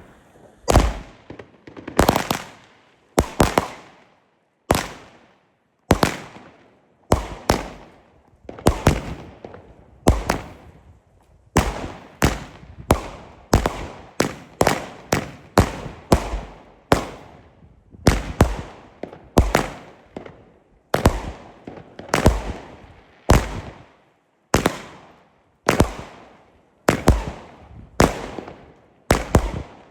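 WECO Heavens Glow firework battery firing shot after shot: a steady run of sharp bangs, a little more than one a second, each one dying away before the next.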